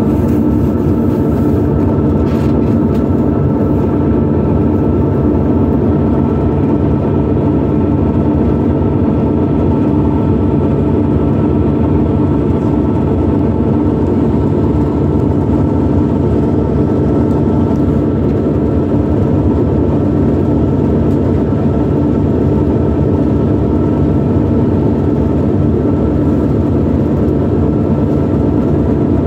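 Passenger hydrofoil's engines running steadily underway, heard on board: a loud, even drone with several steady tones over a low rumble.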